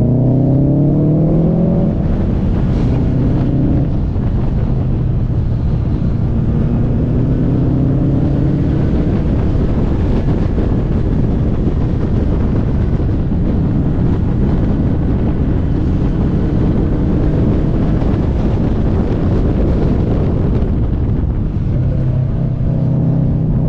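Subaru WRX STI's turbocharged flat-four engine pulling hard up through the revs several times, with a steady rumble of road and wind noise between the pulls.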